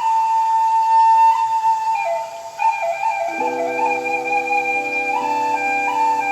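Khlui, a Thai bamboo flute, playing a slow melody of long held notes, with sustained lower backing chords coming in about three seconds in.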